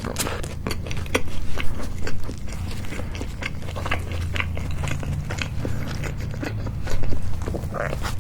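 Close-miked eating sounds of a homemade hamburger: bites and chewing, with the toasted bun crunching and crackling in many small sharp clicks. The bites are loudest in the first two seconds and again about seven seconds in.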